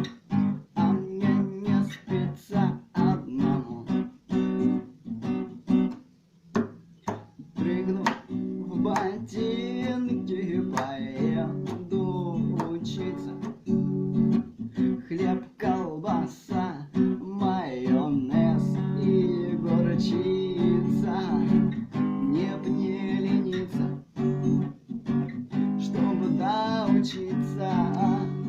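Acoustic guitar strummed and picked in a steady rhythm, accompanying a bard song, with a voice singing over it at times. The guitar drops out briefly about six seconds in.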